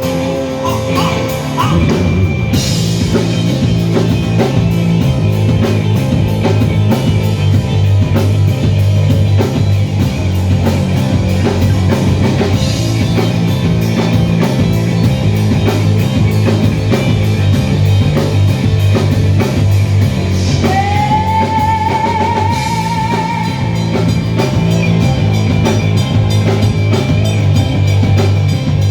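A rock band playing live and loud, with drum kit, electric guitars and bass. About twenty seconds in, a long note with vibrato slides up and is held for a few seconds over the band.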